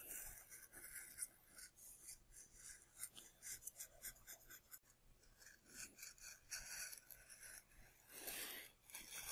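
Faint, irregular scraping of a knife blade shaving and rounding a glued-layer foam model fuselage, short strokes coming about once or twice a second.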